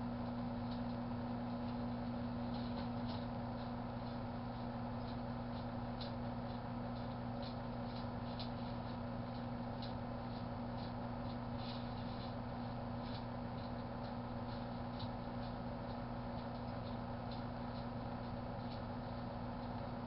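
A 1984 Kenmore microwave oven running with a steady low hum, while faint, irregular ticks come from the ketchup packets heating inside.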